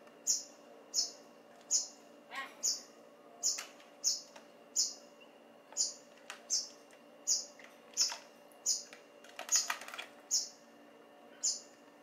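Young rails peeping over and over, one short, high note a little more often than once a second, in an even rhythm. A few sharp clicks of beaks pecking in a plastic tray, a cluster of them a little before the ten-second mark.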